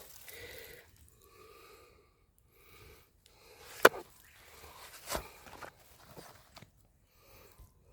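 A man's heavy, huffing breaths repeating about once a second, with a sharp snap about four seconds in and a softer one a second later.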